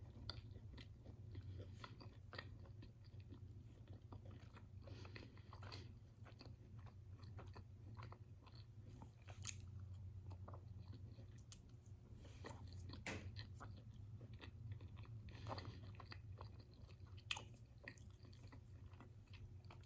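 Faint chewing and small mouth clicks of a person eating, close to the microphone, over a low steady hum.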